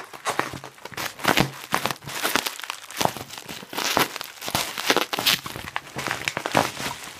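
Plastic bubble wrap crinkling and rustling in irregular bursts as it is handled and pulled open.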